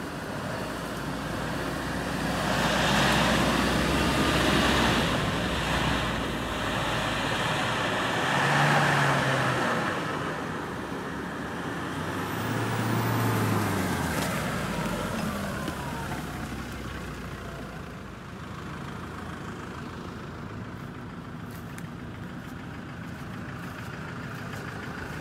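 Off-road 4x4s, Land Rover Defenders among them, driving up a rough forest track, engines revving in three loud swells in the first half as the trucks pass, then running lower and steadier.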